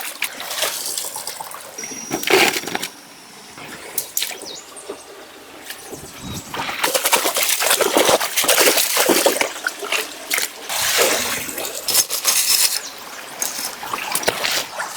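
Mountain stream water splashing and sloshing in uneven bursts, with a quieter spell early on and louder splashing from about halfway through.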